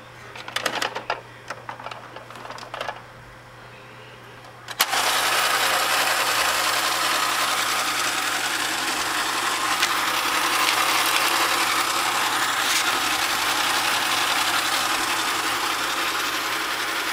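A few clicks and knocks as the toy's red plastic sphere is handled. About five seconds in, the battery-powered motor of a 1960 Ideal Astro Base toy moon base switches on suddenly and runs steadily.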